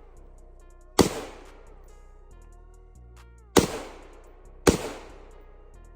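Three gunshots at an outdoor range, about a second in, then a pair close together near the middle, each ringing out briefly. Background music with sliding guitar-like notes plays between them.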